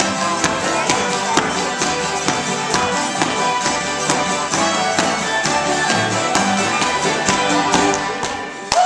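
Old-time string band playing a traditional dance tune: fiddle over strummed acoustic guitars and upright bass, with a steady beat of about two strokes a second.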